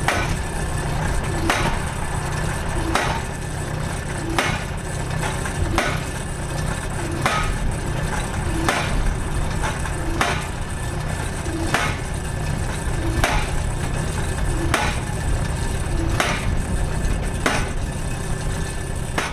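Farm post driver, mounted on a Weidemann loader, hammering a steel sheet pile into the ground: one sharp strike about every one and a half seconds over the loader's steady engine.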